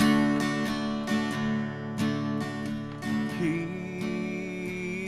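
Acoustic guitar strumming chords in a steady rhythm, about a stroke every half second to second. About three and a half seconds in, a held note with vibrato joins above the guitar.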